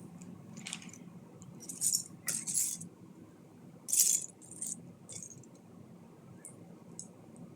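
Small plastic Lego pieces rattling and clinking as they are handled and sorted, in several short bursts, the loudest about four seconds in, followed by a few faint clicks.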